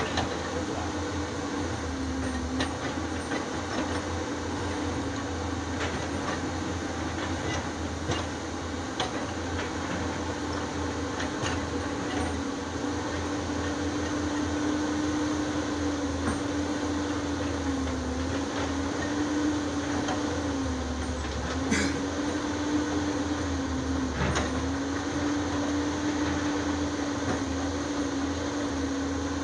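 Caterpillar 320D excavator with its C7.1 diesel engine running under hydraulic work, a steady engine and hydraulic whine whose pitch dips briefly a few times in the second half as the boom and bucket take load. A few faint clicks, with one sharper knock a little past the middle.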